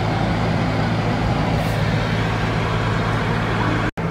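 Car running, heard from inside the cabin: a steady low engine hum under an even rushing noise. It breaks off for an instant near the end at an edit and then resumes.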